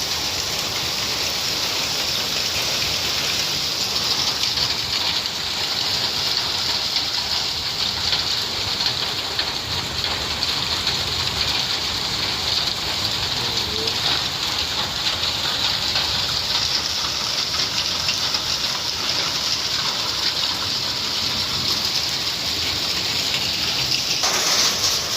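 Heavy rain pouring steadily, a dense even hiss of drops on surfaces that grows a little louder near the end.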